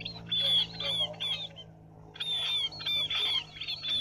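Munias (chim ri) calling: a series of high, falling notes repeated in quick bursts, with a short pause about halfway through.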